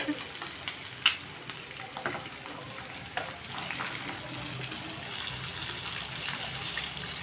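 Marinated mutton chops deep-frying in a kadai of oil on a low flame: a steady sizzle and bubbling that grows a little louder in the second half. A few sharp clicks of metal tongs against the pan come in the first few seconds.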